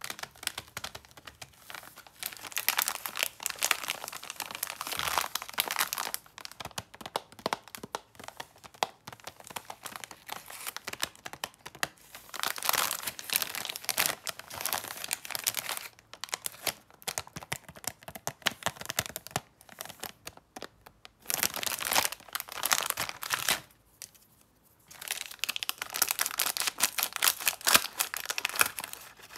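Clear plastic film wrapping a pastry tray crinkling and crackling as it is handled and squeezed, in dense spells with short pauses; near the end scissors cut into the film.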